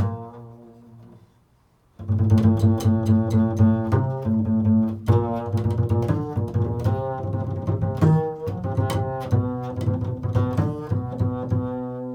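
Improvised playing on a low-pitched string instrument. A few ringing notes fade away in the first second or so, then after a brief pause a quick run of separate notes of changing pitch starts about two seconds in and carries on to the end.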